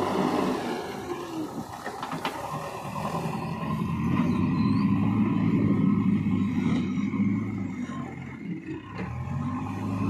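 JCB backhoe loader's diesel engine running under load as the machine moves and works its hydraulics, pulling harder from about four seconds in, easing off briefly near the end, then picking up again.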